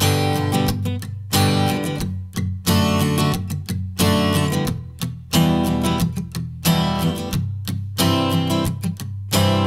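Background music: an instrumental with strummed acoustic guitar.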